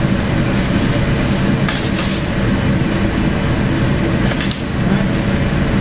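Steady mechanical drone with a low hum from a running machine, with brief handling clicks about two seconds in and again after four seconds.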